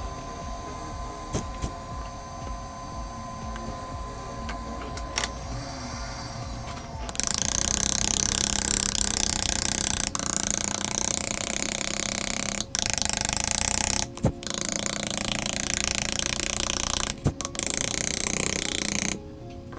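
Pen-shaped grinding tool running against the shattered back glass of an iPhone XS Max, a loud, steady, hissy grinding that starts about seven seconds in. It cuts out briefly three times and stops just before the end. Before it there is only light scraping of a pry blade on the glass, with a few clicks.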